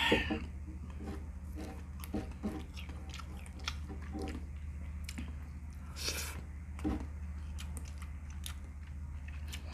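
A person chewing a mouthful of rice and saucy meat, with small wet mouth clicks and smacks, over a steady low hum. A brief louder rustle comes about six seconds in.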